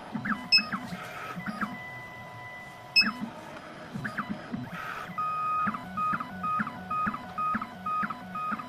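2M2 Tank CNC key cutting machine running its cut program on a key blank: its motors give short whining tones that rise and fall, with light clicks. From about five seconds in, the moves settle into a regular back-and-forth pattern about twice a second.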